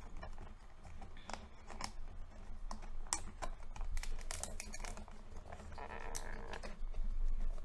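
Thin clear plastic clamshell container being handled and worked open, the plastic crackling and clicking in quick, irregular snaps.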